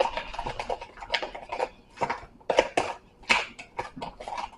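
A utensil clinking and scraping against a mixing bowl in irregular strokes, stirring thick cornbread batter.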